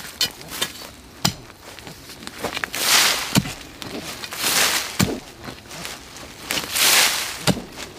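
A long-handled digging tool striking into forest soil about every two seconds, each dull thud mixed with loud scraping and rustling of loose dirt and dead leaves.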